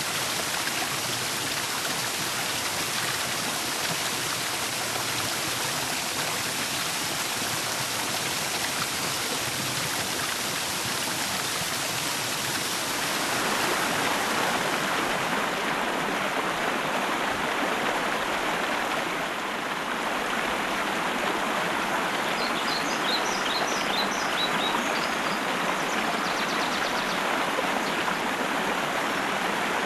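Water rushing steadily in a stream, a continuous even hiss whose tone shifts about halfway through. Later a small bird gives short runs of quick, high chirps over the water.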